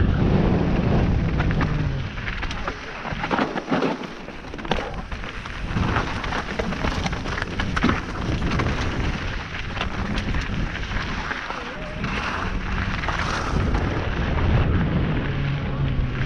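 Wind buffeting the action camera's microphone with a constant low rumble, while the bike rattles and knocks over loose rock and limestone slabs on a fast descent, with many sharp clatters scattered through.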